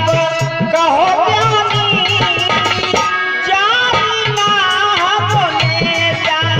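Indian folk music with a tabla beat under a wavering, ornamented melody line and no sung words.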